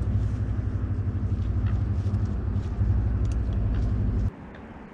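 A low, steady rumble that cuts off abruptly about four seconds in, with faint ticks over it.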